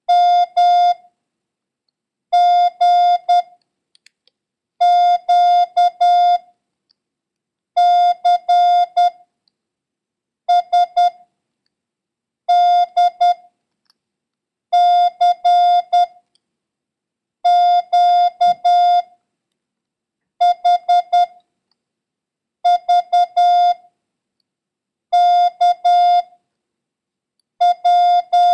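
Morse code practice tone at one steady pitch, sending single letters as groups of dits and dahs, about a dozen characters with pauses of a second or so between them. It is a copying run made up mostly of Q, C and P.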